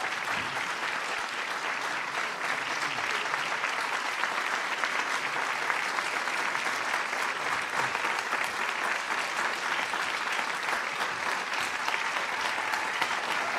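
An audience applauding: many people clapping steadily without a break.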